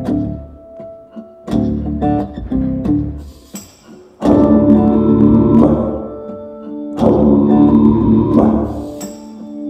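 Recorded song played back over PA loudspeakers in a large hall. Sparse, quieter notes at first, then about four seconds in the full arrangement comes in much louder.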